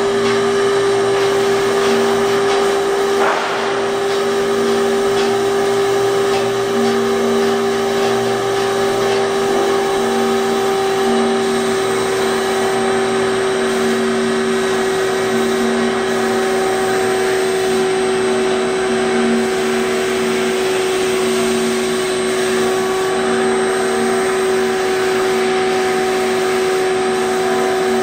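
A machine running steadily, with a constant mid-pitched whine over a low hum that fades in and out.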